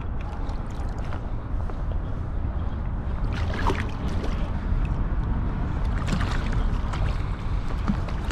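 Wind buffeting the microphone and water around a fishing kayak, a steady rumbling hiss, with a few short knocks about three and a half and six seconds in.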